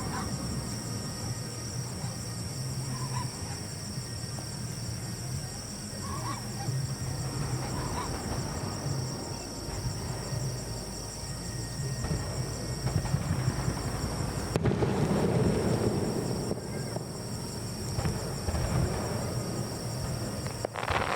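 Outdoor ambience of a fireworks show: faint music from loudspeakers and crowd voices under a steady high hiss. It grows louder and fuller about two-thirds of the way in.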